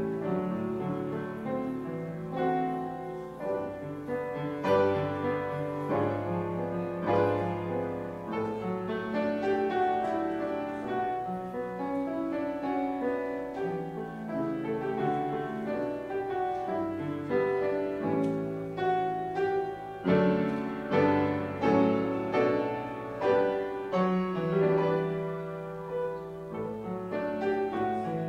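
Solo grand piano playing a continuous piece of chords and melody notes.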